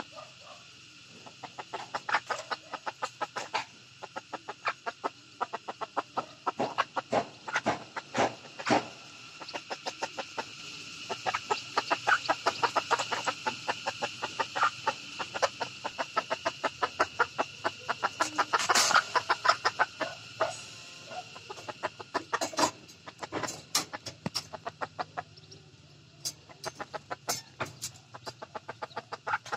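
Junglefowl hen and her chicks calling: a dense run of short clucks and peeps, several a second, busiest through the middle.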